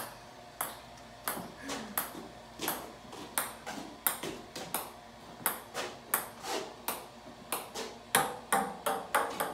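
Ping pong ball bouncing on the face of a golf iron: a run of sharp light ticks, about one every two-thirds of a second, coming quicker near the end.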